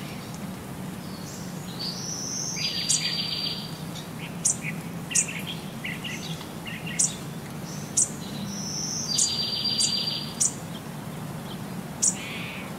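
Songbird-like singing: short sharp high chirps several times, and twice a high whistle that runs into a buzzy trill, over a steady low hum.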